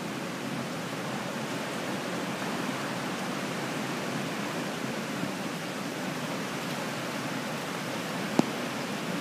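Steady, even rushing ambience of an indoor swimming pool hall, with one sharp knock about eight seconds in.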